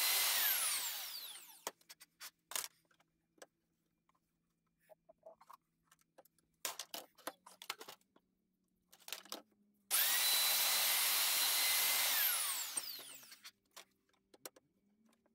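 Electric plunge router running with a steady high whine, then switched off and spinning down with falling pitch; it had been cutting the truss rod channel in a wooden guitar neck blank. Several seconds of scattered clicks and knocks follow as the tool is handled. About ten seconds in, the router is switched on again for about two seconds, then spins down once more.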